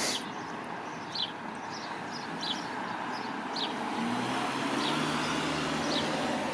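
A road vehicle's engine hum comes in about four seconds in and grows louder as it passes, over steady outdoor background noise. Small birds chirp briefly about once a second throughout.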